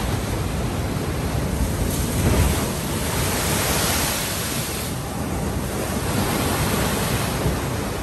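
Heavy surf breaking against a concrete seawall: a steady wash of waves, with one big wave crashing about two seconds in and its spray and foam hissing for a few seconds after.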